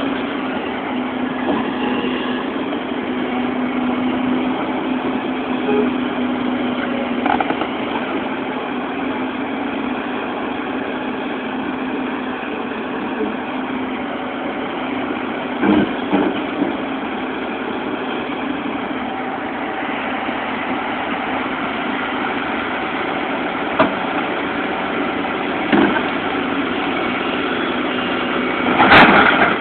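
Bulldozer's diesel engine running steadily at low revs, with a few short knocks along the way and a louder burst of noise near the end.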